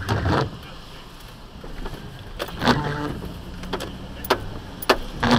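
Low, steady hum of a car rolling slowly, heard from inside the cabin, with two short bits of a voice and a few sharp clicks.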